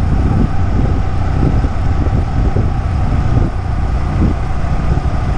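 Steady, loud rumble of wind on the microphone, mixed with the noise of a running vehicle.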